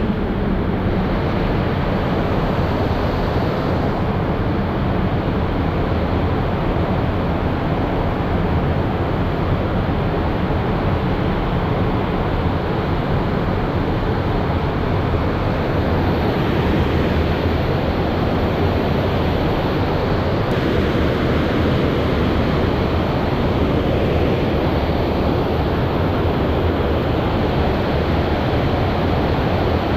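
Steady rush of river water spilling below a lock and dam, an even roar without breaks.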